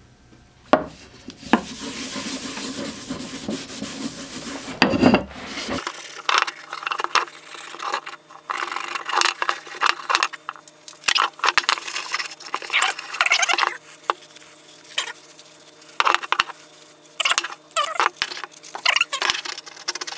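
Cloth rag rubbing Danish oil into a wooden mallet, with irregular scuffs and knocks as the mallet is handled and turned against the wooden workbench.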